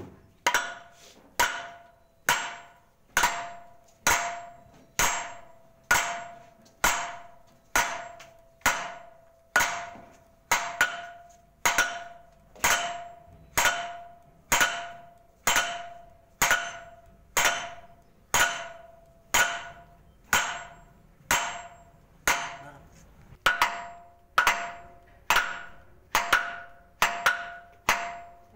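Steady hammer blows on steel, about one a second, each with a short metallic ring. This is a hammer striking the tool that tightens the mantle locking nut on a Metso GP220 cone crusher.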